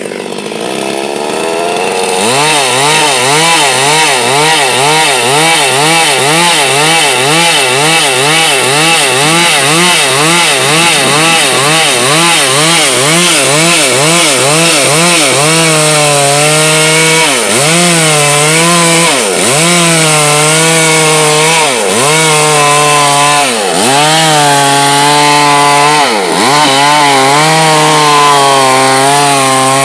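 Chainsaw running at high speed while cutting wood. Its engine pitch wobbles up and down about twice a second, then dips sharply every couple of seconds as the saw is loaded in the cut.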